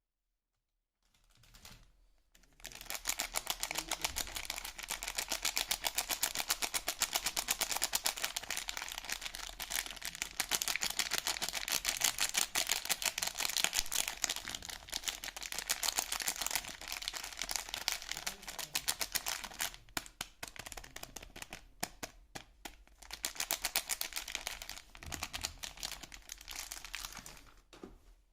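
Soap packaging being handled: a dense, rapid run of small clicks and crackles, with a few short breaks about two-thirds of the way through.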